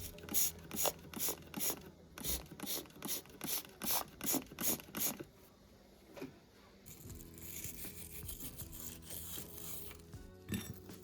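Metal mechanism of an antique hand drill being worked, giving quick scratchy clicks about three a second for some five seconds, followed by a softer steady rubbing hiss.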